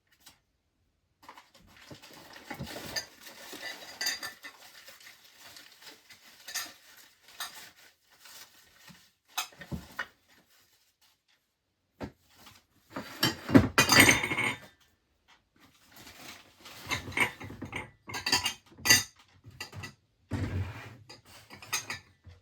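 Dishes and metal cutlery clattering and clinking as they are handled and set down, in irregular bursts with pauses between, loudest about halfway through and again near the end.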